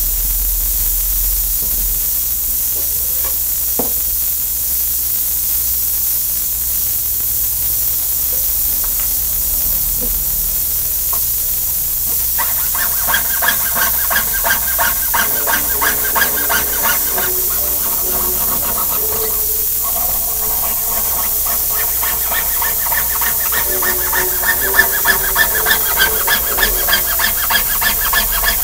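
Jeweller's saw blade cutting a metal monogram pendant on a bench pin: short rhythmic strokes, about two a second, each with a squeaky pitched whine. They begin about halfway in and come faster and louder near the end, over a steady hiss.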